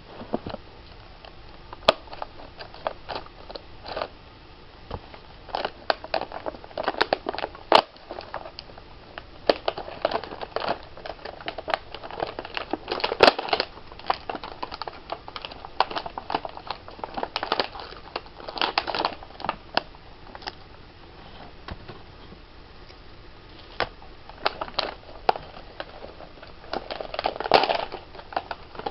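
Camcorder packaging being wrestled open by hand: irregular crinkling, crackling and clicking, in louder clusters around the middle and again near the end.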